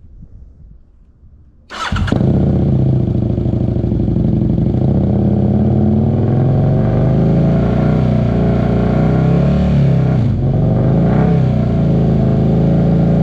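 Husqvarna Nuda 900 parallel-twin with a Remus aftermarket exhaust starting up about two seconds in, catching at once and settling into a steady, loud idle. About ten seconds in, the idle note dips briefly and wavers before steadying again.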